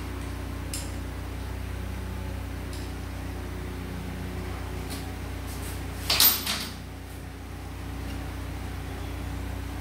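Metal transmission parts handled on a workbench: a few light clicks, then one louder clatter of metal about six seconds in, over a steady low hum.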